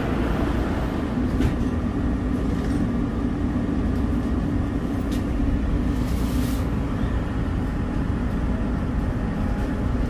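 Elevated metro train standing at a station: a steady low rumble and hum, with a few faint clicks and a short hiss about six seconds in, before it begins to pull away near the end.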